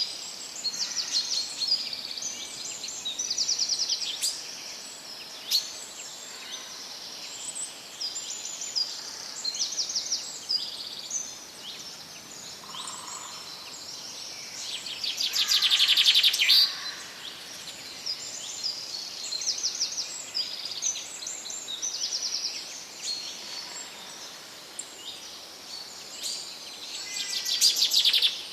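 Several songbirds singing: many short high chirps and rapid trills, the loudest trills about halfway through and near the end, over a faint steady background hiss.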